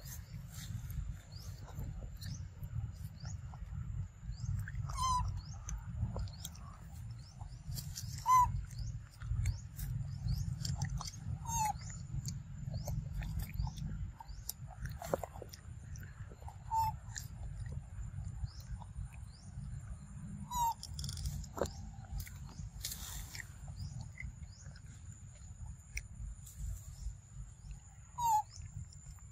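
Forest ambience: a bird gives a short call every few seconds over a steady high insect hum and a low rumble, with faint clicks of a macaque chewing fruit.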